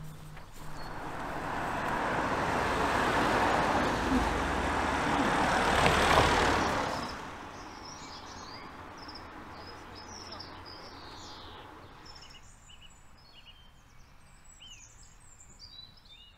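A passing car's engine and tyre noise swells over several seconds and cuts off suddenly about seven seconds in. After that, birds chirp and sing over a quiet background.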